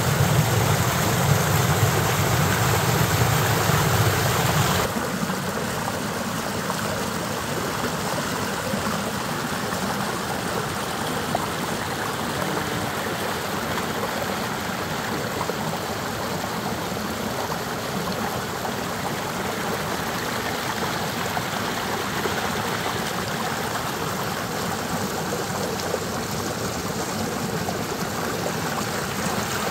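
A small mountain stream rushing and splashing over rocks in a little cascade. It is louder and fuller for the first five seconds or so, then drops suddenly to a slightly quieter, even rush that holds steady.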